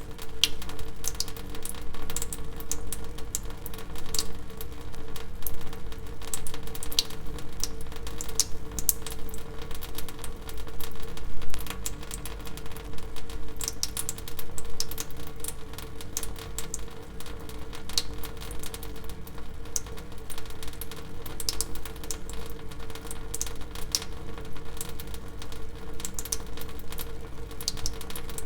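Water dripping: quick, irregular drops, several a second, with a steady hum underneath.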